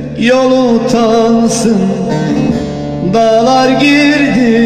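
Turkish song: a singing voice holding wavering notes over instrumental backing with plucked strings, a new phrase starting about three seconds in.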